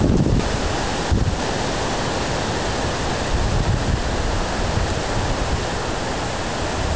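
Strong gusty storm wind rushing through trees, with wind buffeting the microphone in uneven low rumbles.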